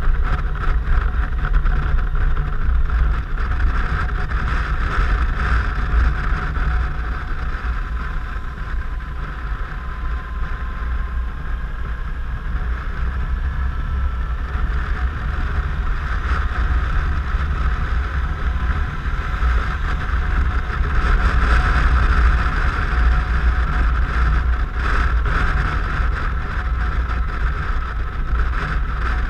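Steady wind rush on the microphone from riding a Suzuki Burgman 650 maxi-scooter at road speed, with the scooter's drone underneath. It swells a little about two-thirds of the way in.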